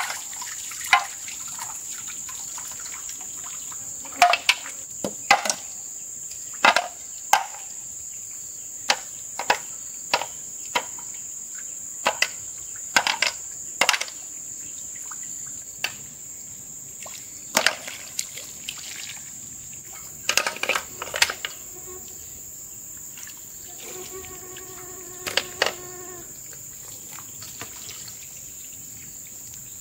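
Insects or cicadas droning steadily at a high pitch, over many short sharp clinks of field snails being dropped into a metal basin as they are picked from the mud by hand.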